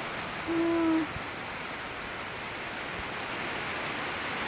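Heavy rain pouring down as a steady hiss. About half a second in, a short held 'ooh' from a voice rises over it.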